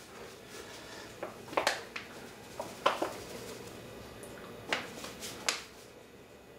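Paper flour bag crinkling as flour is poured from it into a stainless steel mixing bowl: a string of short crinkles and rustles, most of them in the first two-thirds.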